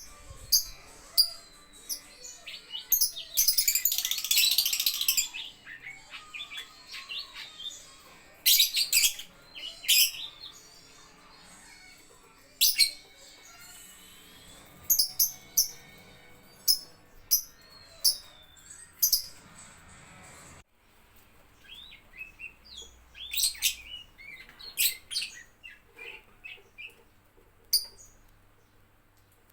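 Lovebirds chirping: strings of short, sharp, high chirps, with a dense burst of chatter about four seconds in.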